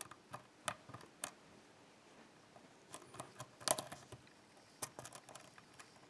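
Scattered small metallic clicks and taps of a lock pick and tension tool working the pins of an ASSA five-pin oval cylinder. A quick cluster of clicks comes a little past halfway.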